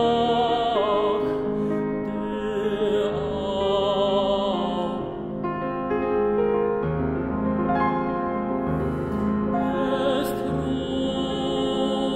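A tenor singing classical art song with vibrato, accompanied by a Steinway grand piano. About five seconds in the voice breaks off for a couple of seconds while the piano plays chords alone, then the singing resumes.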